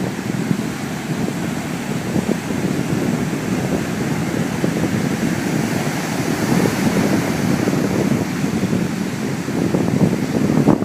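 Strong wind buffeting a phone's microphone in a dense, flickering rumble, with the wash of breaking surf beneath it.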